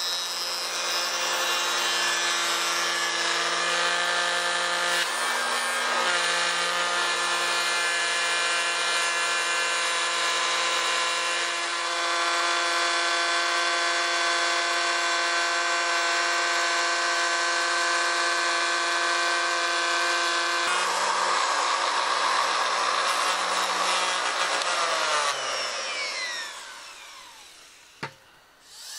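Handheld electric router with a top-bearing pattern bit running at full speed, cutting along a plywood template edge to rout the router-plate recess in the table top; a steady high whine. About 25 seconds in it is switched off and spins down with a falling whine, followed by a short knock.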